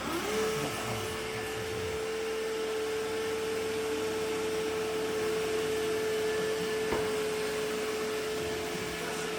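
Roomba i7 robot vacuum's motor spinning up at the start, then running with a steady whine and rushing noise. One short click comes about seven seconds in.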